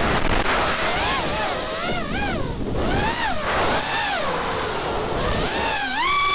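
FPV racing quadcopter's brushless motors and propellers whining, the pitch swooping up and down with quick throttle changes, over wind rushing on the onboard microphone. Near the end the whine jumps up and holds a high steady pitch as the throttle is punched for a climb.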